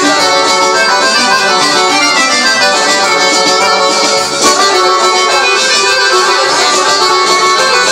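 Live Balkan folk band playing an instrumental interlude, with an accordion-like lead melody over a steady accompaniment.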